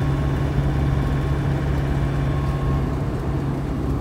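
Steady engine drone and road noise inside a vehicle's cab while it drives along a highway, with a constant low hum.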